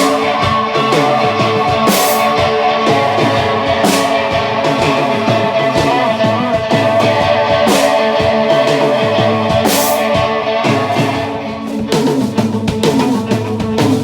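Psychedelic alternative rock played by a band: electric guitar, bass and drum kit, with a cymbal crash about every two seconds. The music dips briefly and changes near the end.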